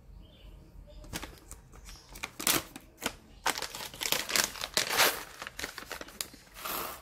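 Coffee bean bag crinkling and crackling as it is handled and opened, in irregular bursts of sharp rustles that grow denser in the middle and end with a rougher rustle.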